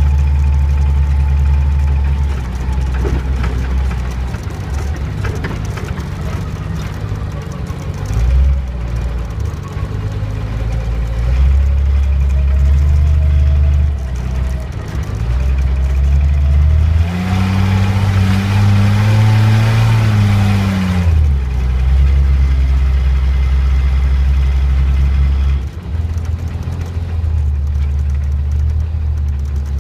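1991 Jeep Cherokee XJ's 4.0 HO inline-six running as it drives a dirt trail, with steady low engine sound. About two-thirds of the way through it revs up for a few seconds, then settles back.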